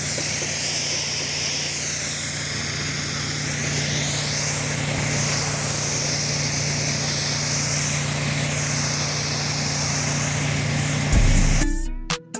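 Pressure washer running steadily: a constant engine hum under a hiss that slowly swells and fades. Near the end it cuts to intro music.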